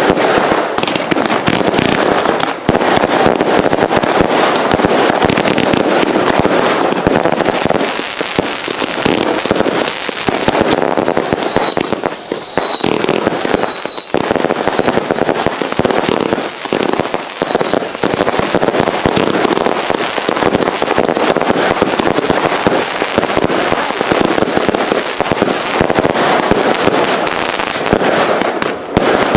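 A row of consumer firework cakes firing together: a continuous dense barrage of launch thumps, bangs and crackle. Partway through, a run of whistles joins in for several seconds.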